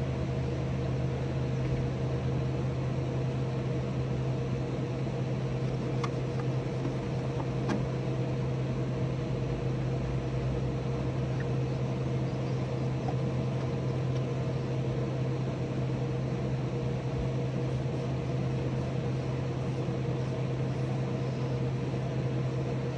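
A steady low mechanical hum, like a motor running, with a thinner higher tone above it.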